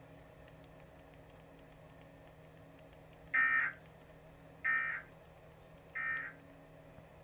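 Three short screeching bursts of Emergency Alert System SAME digital data, the end-of-message code that closes the warning broadcast. They come a little over a second apart, starting about three seconds in, over a low steady hum.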